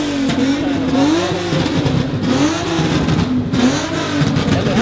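Car engine being revved over and over, its pitch climbing and dropping about once a second, with other engines running underneath.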